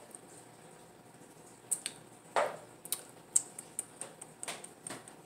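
Mouth sounds of someone whose mouth is burning from spicy food: two short huffs of breath and scattered small lip and tongue clicks.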